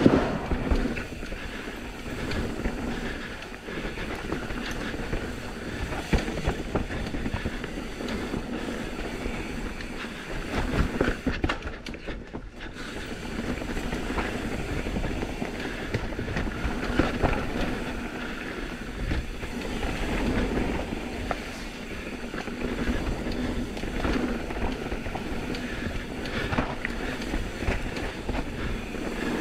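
Intense M16 downhill mountain bike ridden fast over rough dirt trail: tyres rolling on dirt with the chain and frame clattering continuously over roots and rocks, and a hard knock at the very start.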